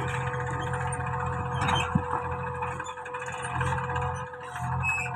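Diesel engine of a JCB 3DX backhoe loader running under working load, its rumble swelling and easing, with a steady thin hydraulic whine. A short knock sounds about two seconds in.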